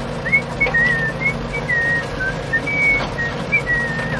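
Someone whistling a tune in short phrases that wander up and down in pitch, over a steady low hum.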